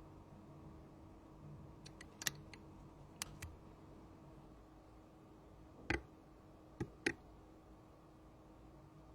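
Small tools and phone parts handled on a repair bench, giving about eight short, sharp clicks and taps at irregular moments, in two loose groups about two and six to seven seconds in, over a faint steady hum.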